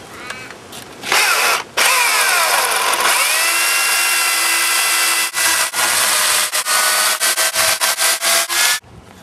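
Makita electric chainsaw cutting through the end of a jarrah log, its motor whine dropping in pitch as the chain bites into the hardwood and rising again. It starts abruptly about a second in, and toward the end it runs in a string of short bursts before stopping dead.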